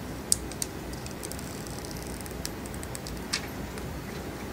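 Plastic screen-protector film being peeled and handled, giving a few sharp clicks and light crackles over a steady low background noise. The loudest click comes just after the start, and another follows a little past three seconds.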